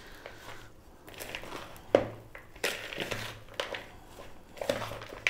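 Shredded raw-vegetable salad with roasted peanuts being tossed with serving utensils in a mixing bowl: irregular rustling of the cabbage and carrots, with a few sharp clicks of the utensils.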